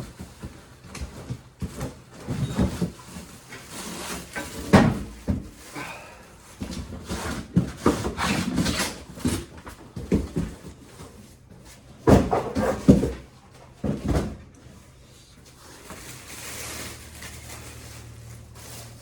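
Cardboard packaging being handled, pulled apart and rustled while a Predator 212 small engine is lifted out of its box: scattered knocks and thumps, the loudest about five seconds in and again around twelve to thirteen seconds in. A faint steady low hum comes in near the end.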